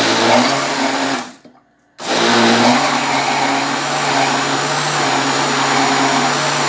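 Countertop blender mixing a thick flour-and-water pie batter: a short run of about a second and a half, a brief stop, then it starts again about two seconds in and runs steadily.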